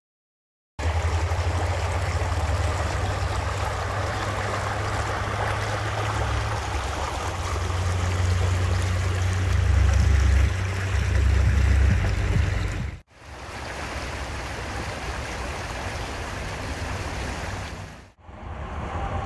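Shallow creek water rushing and splashing over rocks in a steady noisy wash with a strong low rumble underneath. It starts about a second in and cuts out briefly twice.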